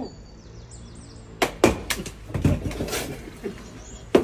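Bread baguettes whacking: three sharp smacks in quick succession about a second and a half in, then a longer crackly, crunchy burst, and one more sharp knock near the end.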